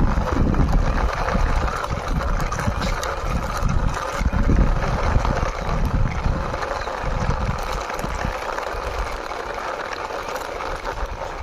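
Toy vehicle being pushed by hand over the ground: a steady rolling and scraping noise, with an uneven low rumble underneath.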